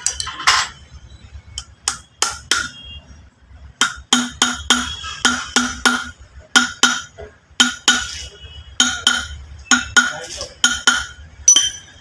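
A run of sharp, ringing metallic clinks from the steel parts of a car's front shock absorber being worked by hand. The clinks come a few at a time at first, then from about four seconds in at roughly three a second, each ringing at the same pitch.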